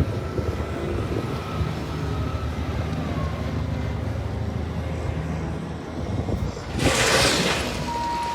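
A vehicle engine running steadily with a low, even hum. About seven seconds in, a loud rush of noise briefly rises over it.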